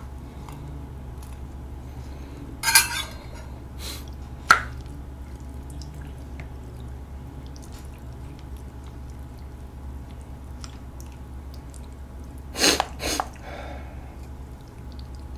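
Spoon scraping cooked rice out of a stainless-steel rice bowl and stirring it into stew in a stone pot: a few short scrapes and knocks with wet, sloppy stirring sounds, about three to four and a half seconds in and again near the end, over a low steady hum.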